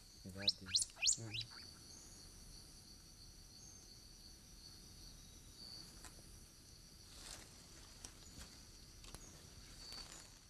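Night insects chirring steadily at a high pitch. A burst of quick, high rising chirps comes in the first second and a half, and a few faint clicks follow later.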